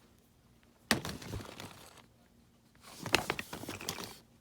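Small plastic toy pieces being handled and rummaged through: a sharp click, about a second of rattling and rustling, then a second spell of several clicks and rustling.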